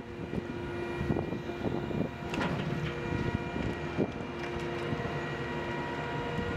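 Heavy machinery running with a steady engine hum and whine, clearing flood debris, with a few knocks about two and a half seconds and four seconds in.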